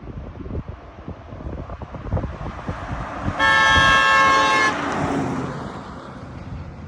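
A passing truck's horn sounds once for just over a second, a steady multi-harmonic note, over the rush of the truck going by on the road, which swells and then fades.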